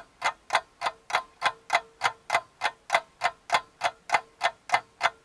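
Steady ticking sound effect, about three ticks a second, like a fast clock, with a faint steady tone beneath.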